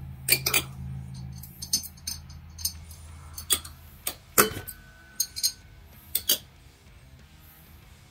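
Steel bolts and small pump parts clinking against a metal magnetic parts tray and the workbench as they are set down: a string of sharp metallic clinks, one about four and a half seconds in ringing briefly.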